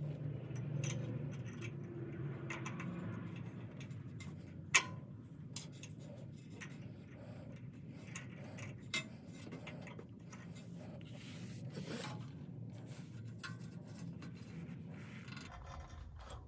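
Faint handling and scraping of hands and steel mounting hardware under a truck, with small metal clicks and clinks from the bolts, nuts and washers of a rock slider being fitted to the frame. The loudest is one sharp clink about five seconds in, with two lighter ones soon after.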